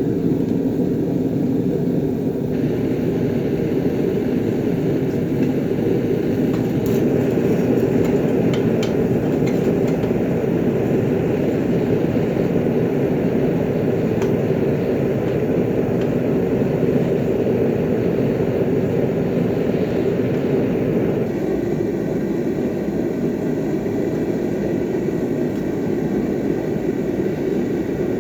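A knife-making forge running with a steady, heavy rushing noise while a steel blade heats toward hardening temperature. A higher hiss joins about two seconds in and drops out about twenty seconds in.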